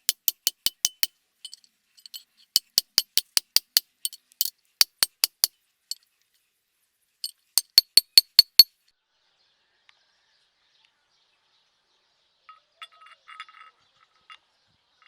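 Hammer striking steel on an anvil in four quick runs of about five or six light, clinking blows each, stopping a little past halfway.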